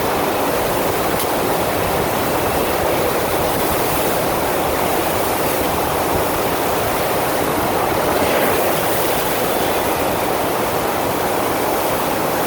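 Steady rush of water from a FlowRider sheet-wave machine, its pumped water pouring continuously over the ride surface.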